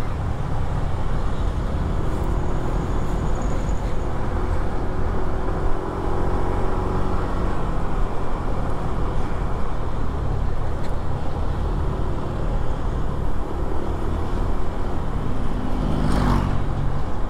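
Bus diesel engine running hard at speed, with steady road and tyre rumble and an engine drone that rises and falls slowly. About sixteen seconds in there is a brief louder swell.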